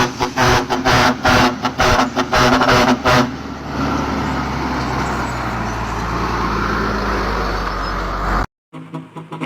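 Large 4-ft trumpet air horns on a vehicle sounding in quick rhythmic blasts for about three seconds, followed by a steady rush of vehicle engine and air noise that cuts off abruptly near the end.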